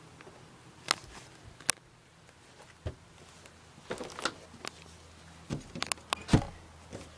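Handling noise from a phone being held and moved: scattered sharp clicks and taps, more of them in the second half, over a faint low hum that comes in about four seconds in.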